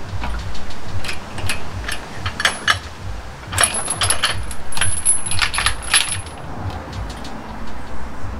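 Metal clinking and rattling of hand tools and engine parts in a Suzuki Samurai's engine bay while the engine is being unbolted for removal: scattered sharp clicks about a second in, then a dense run of clinks for a few seconds in the middle.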